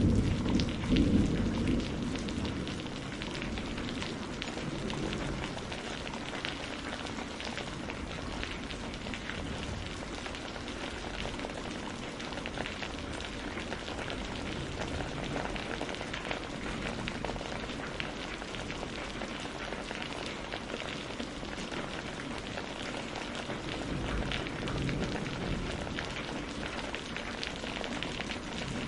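Steady rain falling, a dense hiss of many small drops. A low rumble of thunder dies away over the first couple of seconds.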